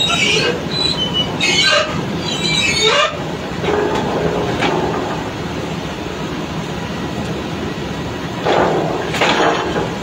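Drilling rig floor machinery running steadily while drill pipe is handled, with high-pitched metallic squeals during the first three seconds and again near the end.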